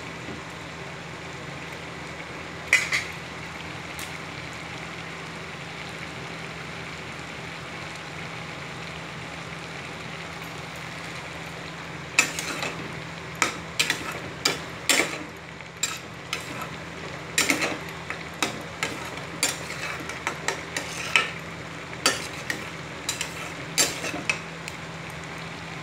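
Slotted spatula stirring a thick spinach curry in a stainless steel pan, scraping and knocking against the pan's side, over a steady hiss of the pan cooking. The knocks come once or twice early on, then fast and irregular through the second half.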